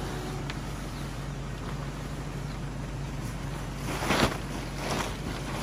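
Yellow truck-tent fabric swishing and flapping as it is shaken out and folded, with three loud swishes about four seconds in, about five seconds in and at the end, over steady background noise.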